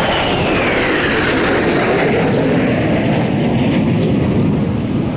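Blue Impulse Kawasaki T-4 jet trainer passing low overhead: loud jet noise with a whine that falls in pitch as it goes by, easing off near the end.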